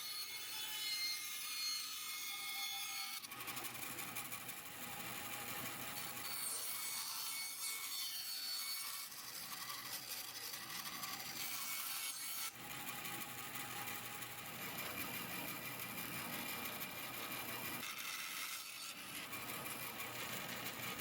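Small pieces of pallet wood being cut and shaped by hand and tool, with sawing and rasping sounds. The sound changes abruptly about three seconds in, about twelve seconds in and near the end.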